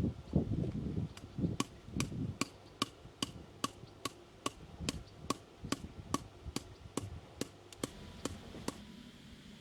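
Steady metallic tapping, about two and a half strikes a second, each with a short ring: a hammer striking a chisel to rake old mortar out of the joints of a stone wall. A few dull knocks and rustling come before the tapping starts about a second in, and it stops near the end.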